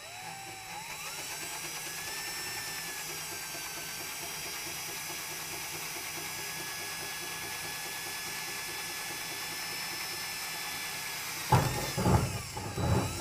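DeWalt 20V cordless drill with an 1/8-inch bit drilling a pilot hole up through the pickup's bed floor: the motor whines up to speed in the first second, then runs at a steady pitch under load. About a second and a half before the end, louder irregular knocking takes over, and then the drill stops.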